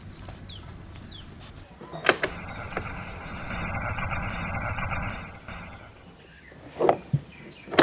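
Old Novosonic table radio: a click about two seconds in, then a hiss of static with a thin steady whistle for about three seconds as the tuning knob is turned, fading away. A few sharp clicks near the end.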